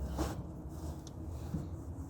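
A wrench being worked on a tie-rod end nut: a short scrape about a quarter-second in and a light click about a second in, over a low steady hum.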